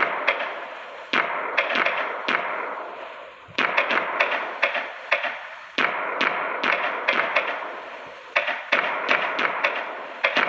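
Diwali firecrackers going off in rapid sharp cracks. One burst is already fading at the start, then four more start suddenly, about every two and a half seconds, each trailing off in crackle and hiss.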